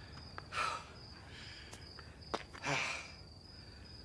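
Crickets trilling in a steady high note, with two soft breathy sighs, one about half a second in and one near three seconds in.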